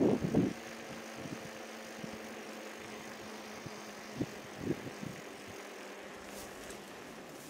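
A car driving steadily along a narrow country lane, heard from inside: even engine and road noise with a faint steady hum. There are a few loud knocks right at the start and two smaller ones a little past the middle, like the car going over bumps.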